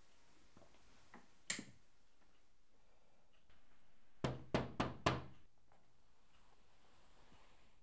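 Four quick knocks on a door, about a quarter of a second apart. A single sharp click comes a little over a second in.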